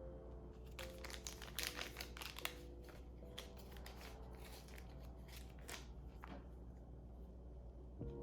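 Plastic packaging crinkling as it is handled and opened, a dense run of crackles for about five seconds that thins out near the end.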